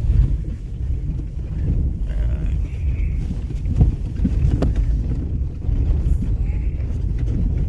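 A vehicle's low, steady road rumble heard from inside the cabin on a rough, broken mountain road, with a couple of sharp knocks from jolts about four seconds in.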